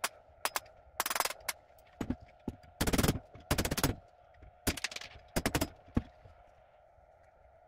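Repeated hard knocks in quick clusters: strikes on a Torx driver used as a punch to drive a retaining pin out of an airsoft AK-74M's front end. The pin does not move despite the force, and the knocks stop about six seconds in.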